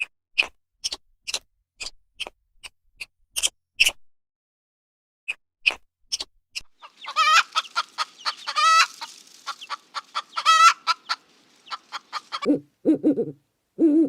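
Chicken calling: a run of short, sharp clucks, then a stretch of wavering, drawn-out cackling. A few low hoots follow near the end.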